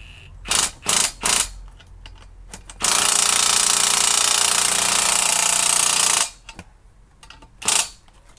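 Bosch cordless impact driver tightening a 17 mm bolt on a steel paddock stand. A few short blips of the trigger come first, then about three seconds of continuous impact hammering as the bolt is driven tight, and one last short burst near the end.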